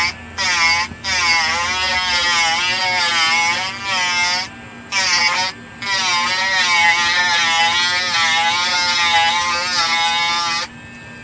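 Dremel rotary tool with a stone bit grinding down the swollen threads of a plastic chainsaw fuel cap. The high whine wavers in pitch as the bit bears on the plastic, cutting out briefly twice near the middle and stopping shortly before the end.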